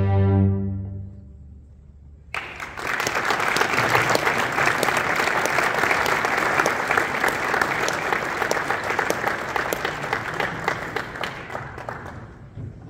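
The last chord of a string chamber orchestra rings and dies away about a second in. After a short silence, audience applause starts suddenly about two seconds in, carries on loudly and fades near the end.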